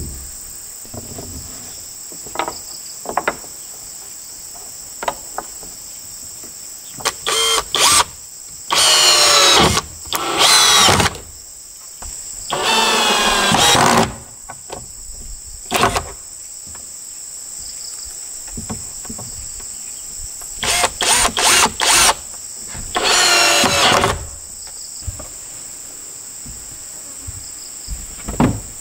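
Power drill running in bursts: a few quick pulses, then several runs of about a second each, twice over. Insects chirp steadily behind it.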